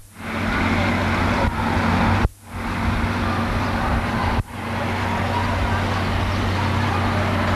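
Steady outdoor rumble and hiss with a low, even hum, cut off briefly twice where the camcorder recording is edited.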